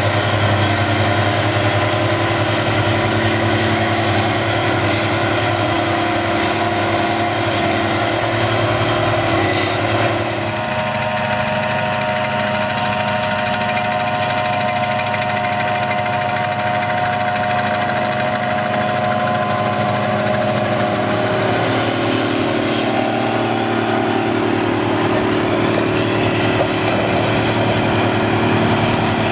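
Diesel engines of a forage harvester and silage tractors running steadily. The engine note changes about ten seconds in, and a steady whine runs through the rest.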